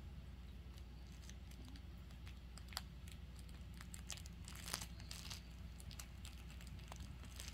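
Faint crinkling and soft clicks from a drowsy puppy mouthing a plush zebra toy. A few louder crinkles come about three seconds in and again near five seconds.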